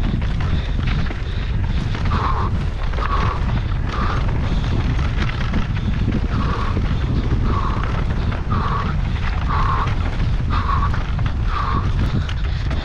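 Mountain bike descending fast on a rough trail: wind buffeting the camera microphone with a deep steady rumble, and the bike rattling and clattering over the ground. From about two seconds in, a short mid-pitched sound repeats roughly once a second.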